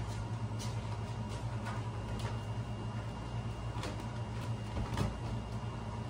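Kittens climbing and clawing a quilted bedspread and jumping down to a tiled floor: scattered light scratches and knocks, a few per second at most, over a steady low hum.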